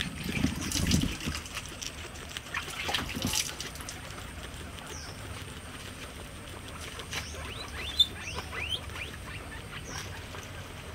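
Guinea pig chewing fresh grass blades: rapid crisp crunching and rustling, busiest in the first second or so, then lighter and sparser, with a single sharp click about eight seconds in.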